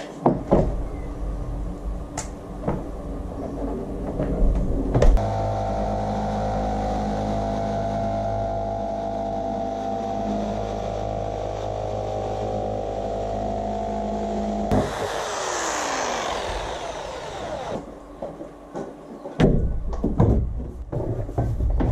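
Electric jigsaw cutting a cutout in a thin 3 mm plywood sheet: the motor runs steadily for about ten seconds, then is switched off and winds down with a falling whine. Knocks and scrapes from handling the sheet come before and after the cut.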